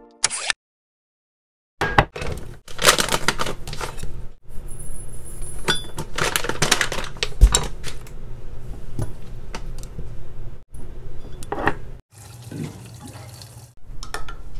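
Kitchen prep of chia seed water: clatter and clinks of a glass measuring cup and a seed bag being handled, a steady pour of water about twelve seconds in, and a spoon clinking against the glass near the end.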